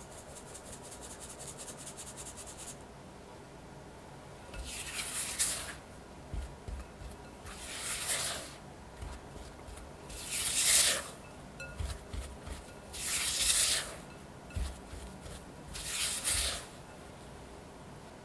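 A fine mesh sieve shaken over a glass bowl, a quick run of light ticks as cake flour and strawberry powder sift through, stopping a few seconds in. Then a silicone spatula scrapes and folds the flour into the butter-and-egg batter in the glass bowl: five scraping strokes about every two and a half seconds, with light knocks between them.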